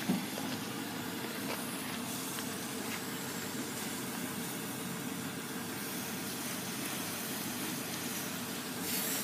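Steady rushing outdoor background noise with a faint steady hum under it, a small click at the start and a brief louder hiss near the end.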